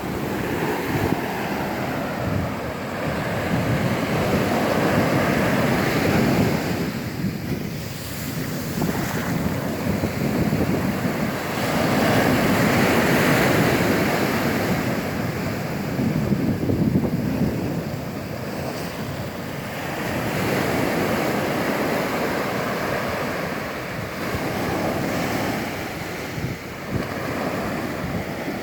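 Ocean surf breaking and washing up a sandy beach, the sound rising and falling every few seconds as each wave comes in.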